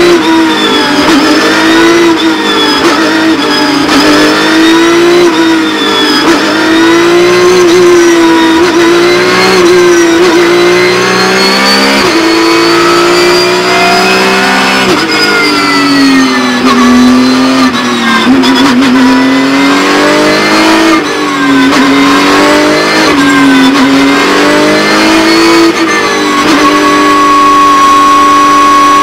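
Porsche 911 GT3 Cup race car's flat-six engine heard from inside the cockpit, its revs rising and falling again and again with the throttle and gear changes. Near the end the engine note settles and holds steady.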